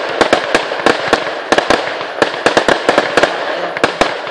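Fireworks going off: a rapid, irregular string of sharp bangs, several a second, over a steady hiss.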